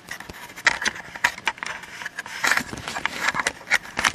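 Irregular crackling and sharp snaps, about a dozen in four seconds, from the powered RCA CTC28 color TV chassis. They are the sign of a failing part in the set, which has just fried.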